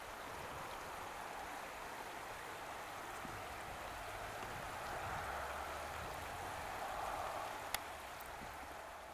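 Shallow, stony stream running over rocks: a steady rush of water that grows a little louder past the middle, with one sharp click near the end.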